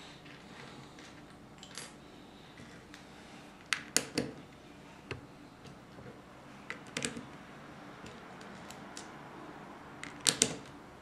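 Plastic Lego pieces clicking and clattering as they are handled and pressed onto a baseplate: short sharp clicks in small clusters around four and seven seconds in, and a louder cluster near the end.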